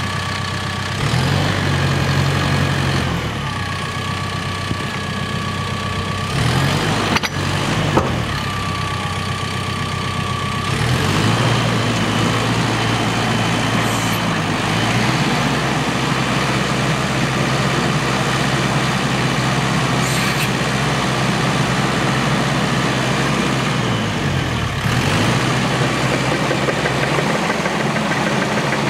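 Cat D5K2 XL dozer's Tier 4 Final diesel engine running, its speed dipping and recovering twice, about seven seconds in and again near the end, as the blade is worked. A high steady whine sounds over the engine through roughly the first ten seconds.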